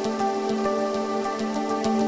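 Soft background music of sustained, held tones in a gentle new-age style.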